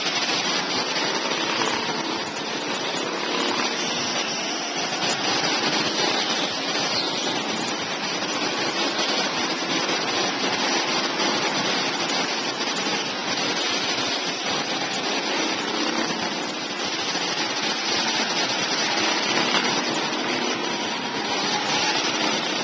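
Go-kart engines running around an indoor kart track, a steady din that carries on without a break.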